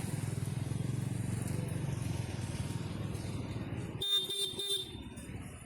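A small motorcycle engine idling with a steady low pulsing, then, about four seconds in, three quick short beeps of an electric horn.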